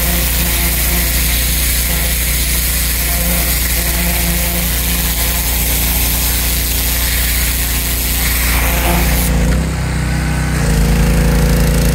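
Pressure washer running, its spray hissing against brick steps. About nine seconds in the spray stops and the machine's running note shifts and keeps going.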